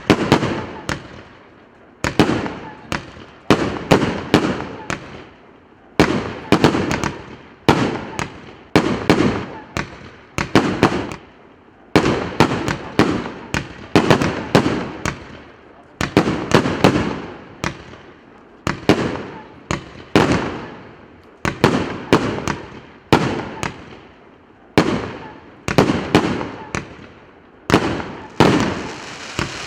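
PC875 100-shot, 1.2-inch firework cake firing in rapid volleys: a cluster of sharp bangs about every two seconds, each bang trailing off in an echo.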